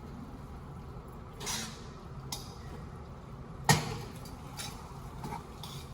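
Spaghetti sauce being stirred in a pot: a soft scrape about a second and a half in, a light click, then one sharp knock just after the middle, the loudest sound, and a few faint clicks near the end, over a steady low hum.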